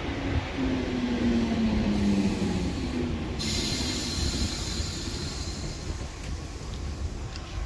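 Electric multiple unit train rolling slowly along the platform. A low motor whine falls in pitch over the first few seconds over the rumble of the wheels, and a high wheel squeal sets in about three and a half seconds in.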